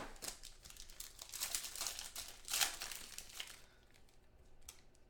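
Clear plastic wrapper crinkling and tearing as it is pulled off by hand to open trading cards, with several louder crinkles in the first three and a half seconds, then only faint rustling.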